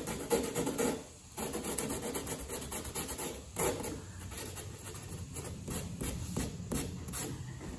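80-grit sandpaper on a hand sanding block scuffing the painted edge of a fiberglass trunk lid, in repeated back-and-forth strokes, with a short pause about a second in.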